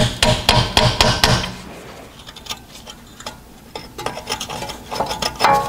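Hammer tapping a bolt extractor onto a rusted, rounded-off wheel speed sensor bolt: a quick run of light metal taps in the first second and a half, then scattered fainter clicks.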